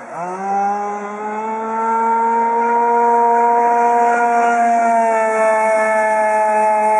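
Petrol engine of a radio-controlled racing boat running at high revs, a steady high-pitched whine. The pitch climbs back up over the first second after a brief throttle-off, holds steady, and sags slightly about five seconds in.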